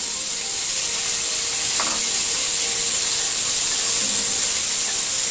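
Chopped onions sizzling in hot mustard oil in a wok, a steady frying hiss, with a spatula stirring them about four seconds in.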